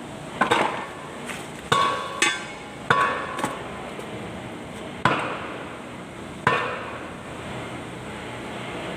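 Sharp metal-on-metal clanks from steel tractor axle parts and tools being struck or set down: about six of them, irregularly spaced, several ringing briefly.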